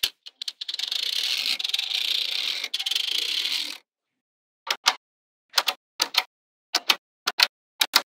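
Small magnetic balls rattling densely and rapidly for about three seconds. After a short pause come sharp clicks in quick pairs, about every half second, as balls snap onto the slab of magnetic balls.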